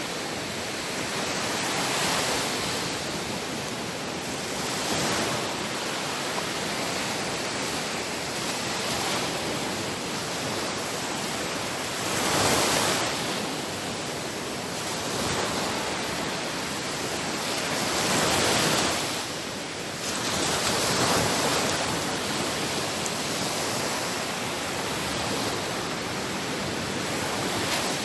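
Sea waves washing onto a shore: a steady rush of surf that swells every few seconds as each wave breaks, strongest about midway through.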